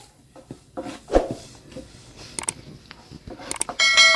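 Household handling noises: scattered clicks and a knock, then near the end a metal object is struck and rings out clearly for over a second.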